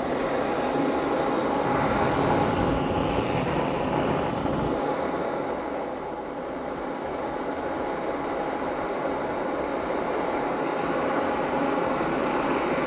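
Handheld gas brazing torch burning with a steady hiss as its flame heats metal strips for hard soldering.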